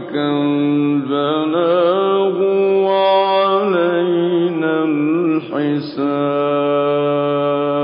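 Solo male Quran recitation with tajweed: one voice holding long melodic notes with ornamented turns, briefly pausing for breath about five and a half seconds in.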